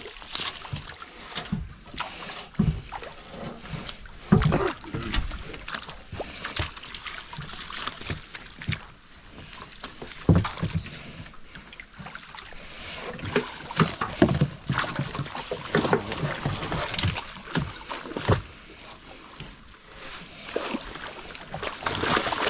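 Water splashing and sloshing around a small fishing boat, with irregular knocks and thumps from gear being handled.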